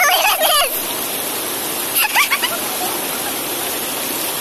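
Steady rushing of water, with raised voices calling out briefly over it near the start and again about two seconds in.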